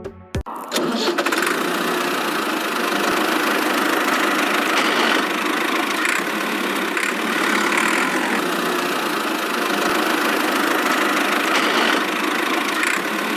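Miniature toy tractor's small motor running steadily, an even engine-like drone that comes in abruptly just after a brief drop at the start.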